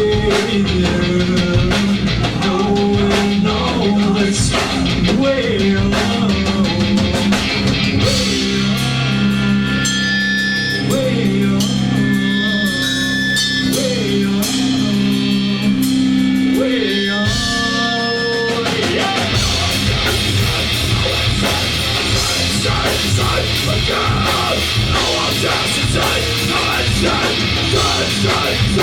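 Live rock band playing, with guitar, drum kit and singing. The middle thins out into a sparser passage of long held notes, and the full band comes back in about two-thirds of the way through.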